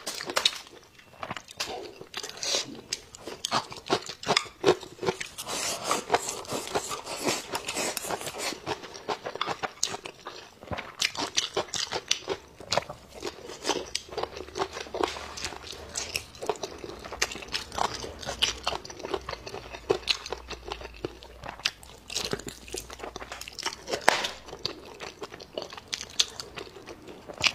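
A person chewing and biting braised pork right at a clip-on microphone: a dense, irregular run of wet smacks and clicks from lips, teeth and meat.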